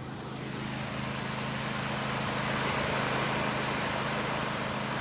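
John Deere riding mower's engine running steadily with its blades turning, a hum under a broad rush of noise that swells toward the middle.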